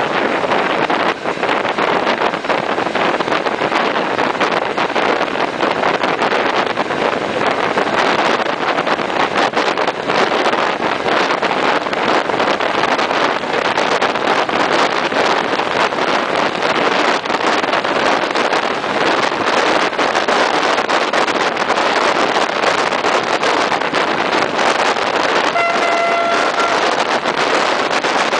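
Wind rushing over the microphone and the running noise of a moving regional train, heard from an open window. A single horn note sounds for about a second near the end.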